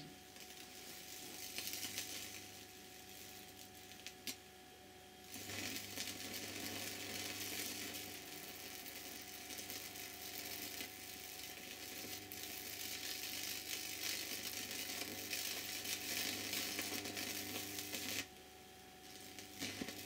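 High-voltage arcing across a bug zapper grid powered by a microwave oven transformer, burning through an object resting on the wires: a sizzling, crackling buzz over a low transformer hum. It comes in about five seconds in, breaks off briefly near the end, then starts again.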